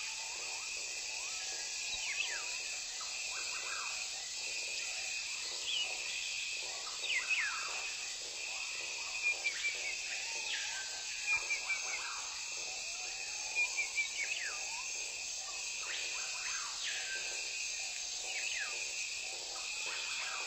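Forest ambience: a steady, high insect drone, with a bird repeating short falling whistle calls every few seconds, sometimes several in quick succession.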